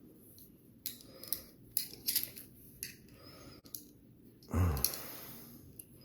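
Strider .75 AR folding knife being handled: a string of sharp metallic clicks as the blade is worked open and shut on its freshly adjusted pivot, then a louder low thump about four and a half seconds in.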